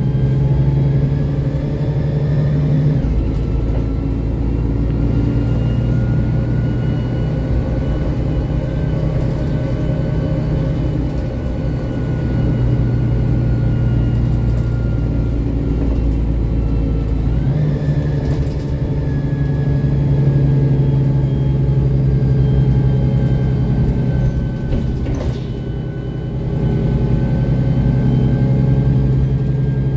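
Mercedes-Benz Conecto city bus under way, heard from inside the cabin: the OM 457 hLA straight-six diesel and Voith DIWA automatic transmission drone steadily, with a faint whine gliding above. The engine note changes about three seconds in and again around seventeen seconds. A single brief knock comes late on.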